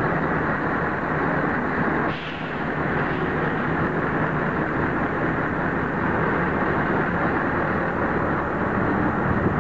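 Steady engine and machinery rumble on a ferry's vehicle deck, with a brief dip about two seconds in.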